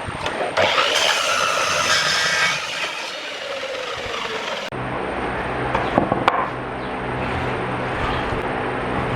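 A power tool cutting wood: a loud, hissing cut with a whine over it for about four seconds. After an abrupt break it gives way to a lower, steady machine hum with two sharp knocks about six seconds in.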